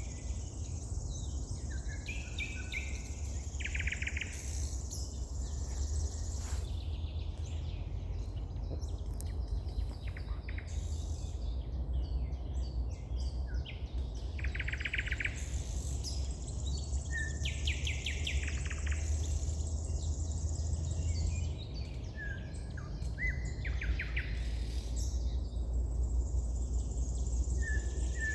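Wild songbirds singing, with short trilled phrases repeating every few seconds, over a steady low rumble.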